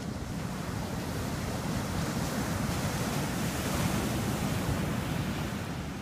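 Ocean surf: small waves breaking and washing up a sandy beach, growing louder toward the middle and easing off near the end.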